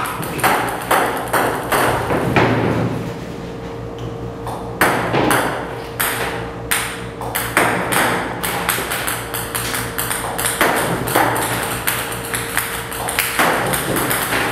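Ping-pong balls shot by a table tennis robot, clicking sharply on the table in a quick, irregular series with a short lull about four seconds in.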